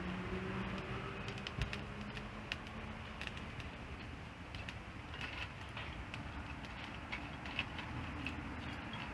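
Wood bonfire crackling, with irregular sharp pops and snaps over a steady rushing background. A faint low hum fades out a few seconds in.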